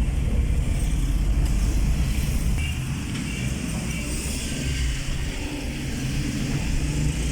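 Steady road-vehicle noise: a low engine and road rumble from motor traffic, easing a little midway.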